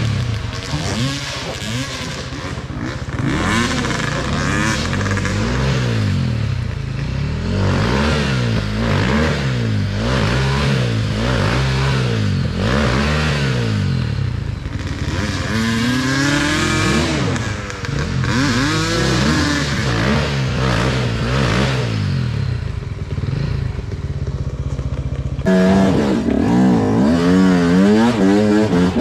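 Enduro dirt bike engine revved again and again, its pitch rising and falling in short bursts as the rider works the bike over rough, rocky ground. Near the end a louder, closer dirt bike engine takes over, running under way.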